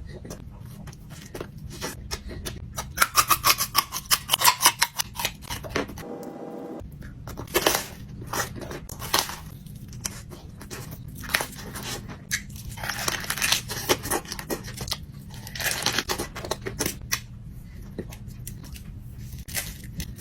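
Close-up eating sounds of a person chewing butter: irregular runs of rapid mouth clicks and smacks, loudest a few seconds in.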